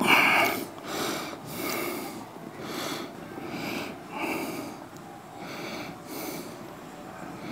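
A man breathing hard and forcefully while straining through a weightlifting set: a run of sharp, noisy breaths, about one a second, the loudest right at the start.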